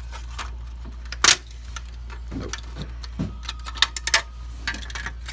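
Clicks and knocks of a PS4 power supply's plastic housing being pried open and its circuit board lifted out, with a sharp snap about a second in as the loudest and a few more clicks near the end.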